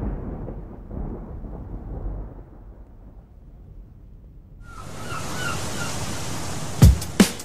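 Intro of an electronic music track. A low rumble dies away over about four seconds, then a sudden wash of hiss with a few short chirps comes in. Near the end two deep electronic kick drum hits land as a drum and bass beat starts.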